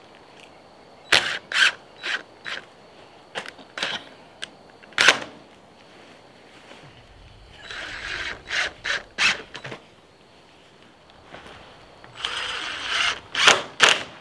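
Cordless drill driving screws with washers through heavy vinyl sheeting into a wooden frame: a scatter of sharp clicks and knocks, then two short runs of the driver about eight and twelve seconds in.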